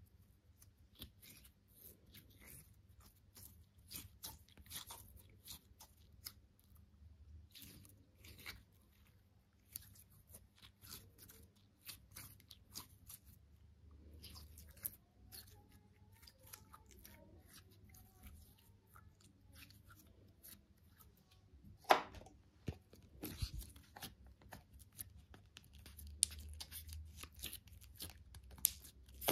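Hands working slime, making a quiet, irregular string of small crunching, crackling clicks, with one sharper snap about three quarters of the way through.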